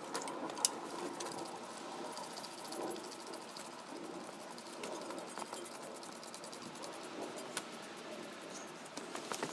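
Caked grease and oil being scraped and rubbed off a Volkswagen 1600 dual-port engine by hand: a steady scratchy rubbing with scattered small clicks.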